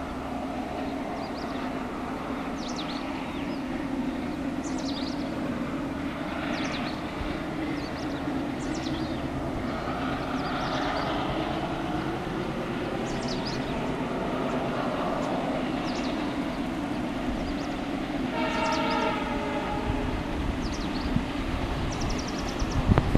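WDG-3A diesel-electric locomotive, with its ALCO 16-cylinder 251 engine, running with a steady drone; about eighteen seconds in, its air horn sounds once for over a second. Birds chirp over it again and again, and there is a low thump near the end.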